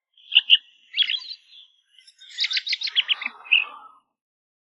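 Bird chirping: a few short high chirps, then a rapid trill of quick notes and one last chirp, cutting off suddenly about four seconds in.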